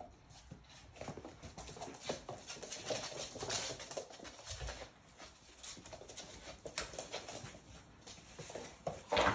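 Labrador puppies at play: claws clicking and pattering on a laminate floor and scuffling in bedding, with small puppy whimpers and yips. There is a short, louder sound just before the end.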